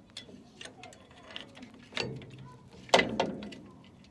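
Scattered clicks and clanks of drum brake springs and hardware being handled and fitted, the loudest clank about three seconds in.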